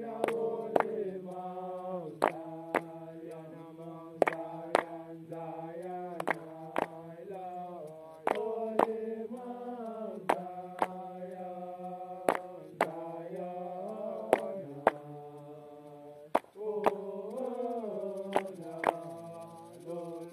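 Voices chanting a Rastafari chant in long, drawn-out notes that slide slowly between pitches. A sharp percussive beat keeps time with two strikes about half a second apart, repeating every two seconds.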